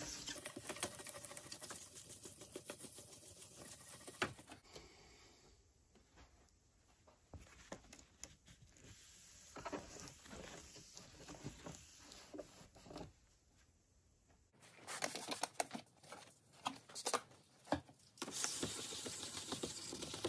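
Wet sandpaper rubbed by hand in small circles over a Code 3 XS8000 lightbar's clear plastic strobe dome: an irregular, scratchy rubbing. It eases off to soft, patchy wiping in the middle and comes back stronger, with scattered scuffs, in the last few seconds.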